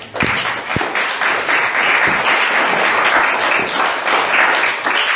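A meeting audience applauding to welcome a speaker. The clapping breaks out suddenly and goes on steadily.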